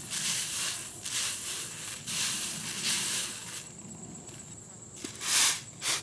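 Rice grains rustling and swishing in a large round woven winnowing tray as it is worked, in rhythmic swishes about once a second, fading after a few seconds, with one more swish near the end.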